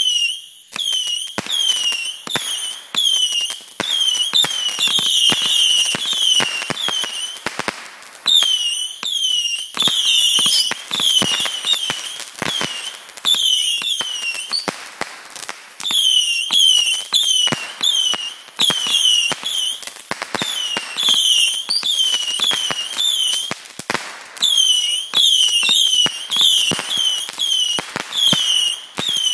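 Fireworks going off in a rapid string, about two to three shots a second, each a sharp pop with a short whistle falling in pitch. The run breaks off briefly three times.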